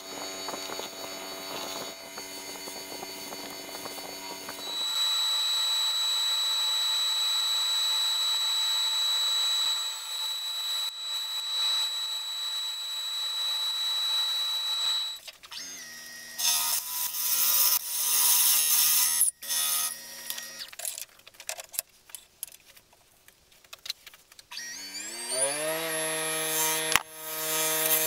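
A run of woodturning machine sounds: a wood lathe's motor running, a cordless drill running into the turning blank, and near the end the lathe's motor spinning up in a rising whine before settling to a steady run.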